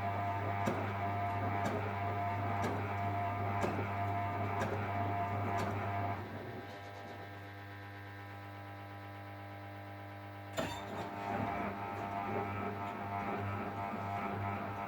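Ariston Margherita washing machine tumbling a duvet in its main wash: the drum motor runs with a low hum and a tick about once a second, stops for about four seconds leaving a quieter steady hum, then starts again abruptly.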